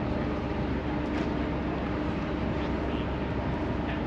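Steady drone of a running vehicle or engine: an even rumbling noise with a constant hum in it.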